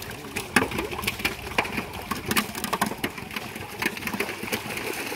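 Irregular wooden knocks and creaks, a few a second, from a small boat moving across the water.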